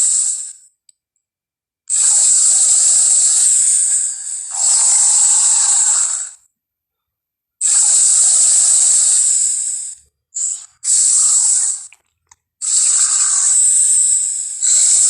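Triceratops creature sound effect standing in for a rhinoceros: a string of about six loud, breathy hissing blasts, most one to two seconds long, with silent gaps between them.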